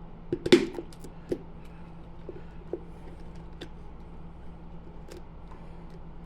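Mayonnaise being added to chicken salad: one short wet squelch about half a second in, then a few light clicks and taps, over a low steady hum.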